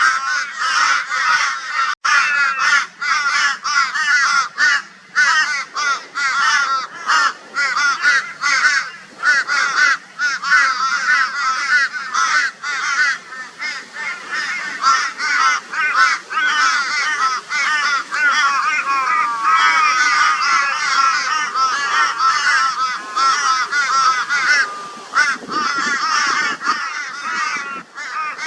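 A flock of crows giving loud, raucous caws, many birds calling over one another almost without a break: the mobbing calls crows raise against a barn owl.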